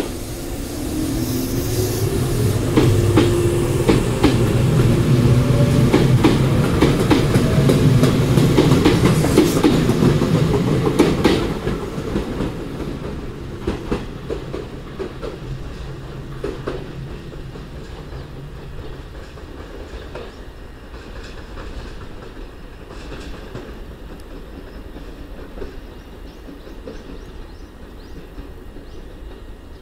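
Tobu 8000 series electric train pulling away: its motor hum rises in pitch as it gathers speed, and its wheels clack over the rail joints. It is loudest for the first ten seconds or so, then fades into the distance.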